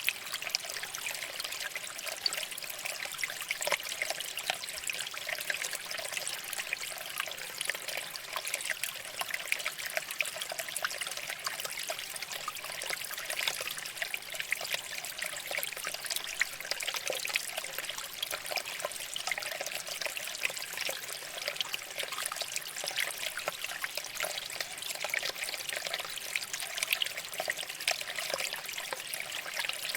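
Shallow water flowing and trickling over rocks, a steady babble with many small splashes.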